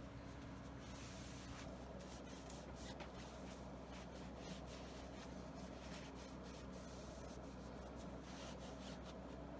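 Faint, irregular rubbing and scraping strokes over a steady low hum.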